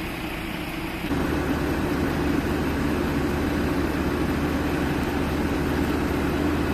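Heavy diesel engine of a tracked excavator running steadily, growing louder about a second in.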